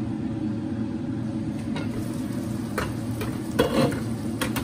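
Pot of pork and vegetable broth boiling on the stove, a steady bubbling hiss. A few light knocks sound over it, the loudest about three and a half seconds in.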